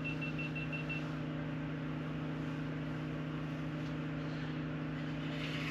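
Steady mechanical hum of a running machine, with a high electronic beep that pulses rapidly and stops about a second in.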